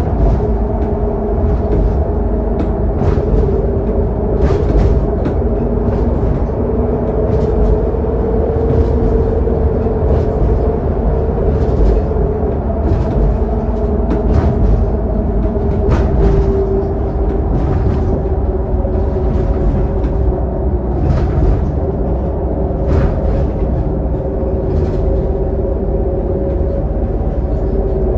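Interior noise on the lower deck of a Scania K280UD double-decker bus cruising on a highway: a steady engine and drivetrain drone with a held tone, heavy road rumble, and short knocks every second or two.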